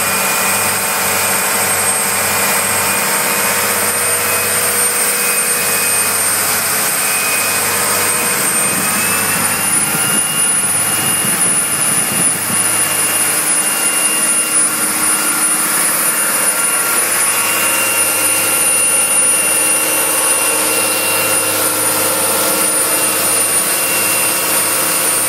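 Trojan 44 Express cruiser's engines running at cruising speed: a steady, loud drone with a high whine that steps up slightly in pitch about nine seconds in, over the rush of the churning wake.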